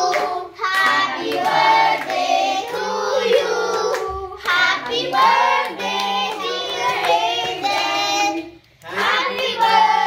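A group of children singing a birthday song together, with hand clapping. The singing breaks off briefly about four seconds in and again near the end.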